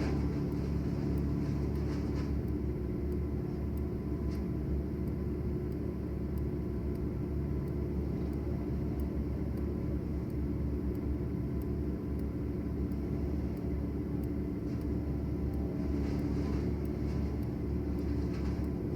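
A large engine running steadily at a constant speed, a low hum that neither rises nor falls.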